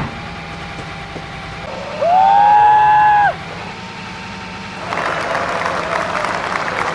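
A loud pitched tone, rising briefly and then held for just over a second, over a steady low hum; about five seconds in, clapping begins.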